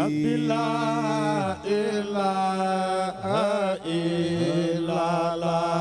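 Male chanting of Islamic devotional verse (dhikr), the voice holding long, drawn-out notes with wavering ornaments and only brief breaks for breath.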